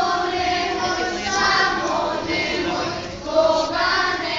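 A group of young voices singing a folk song together in unison, the sung accompaniment of a circle dance.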